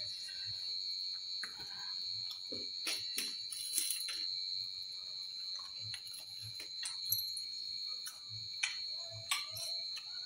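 Eating by hand from a steel plate: scattered light clicks and clinks with soft chewing, over a steady high-pitched whine.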